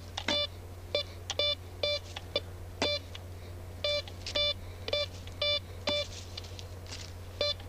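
Deeptech RG750 Vista metal detector beeping as its coil passes over a coin buried beneath a mineralized stone: the target signal coming through the stone. About a dozen short, clipped beeps, some in quick pairs, at irregular intervals.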